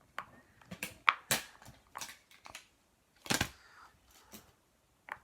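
Irregular clicks, taps and short rustles of fidget toys being handled, the sharpest about a second in and again about three and a half seconds in.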